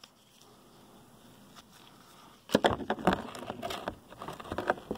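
Faint hiss, then from about two and a half seconds in a run of irregular knocks, clicks and rustles: close handling noise from a hand-held phone and the small items being handled.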